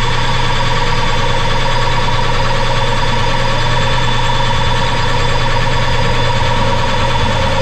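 Metal lathe running steadily, its spindle turning a metal shaft while a center drill held in a tailstock drill chuck is fed by hand into the end of the shaft.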